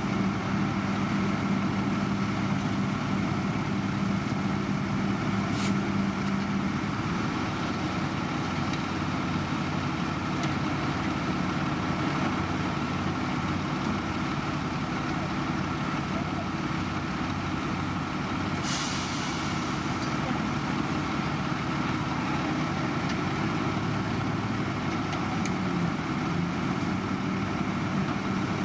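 Heavy diesel engines of road-paving machinery running steadily. About two-thirds of the way through there is a short hiss of air lasting about a second.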